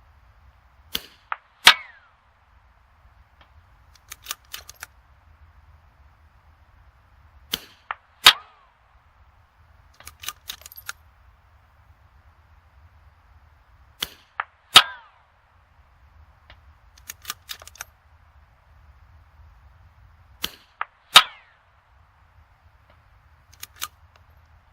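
Four sharp .22 rimfire rifle shots about six and a half seconds apart, each with a smaller click just before it and a cluster of softer clicks between shots.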